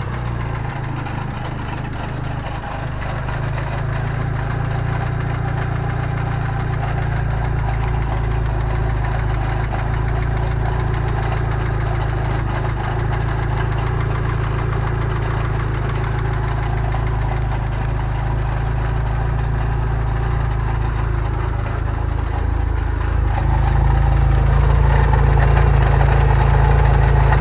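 Engine running at idle with a rattle, which the owner traced to a loose starter ring gear on an aftermarket Fidanza flywheel rather than rod bearings. It gets a little louder about three-quarters of the way through.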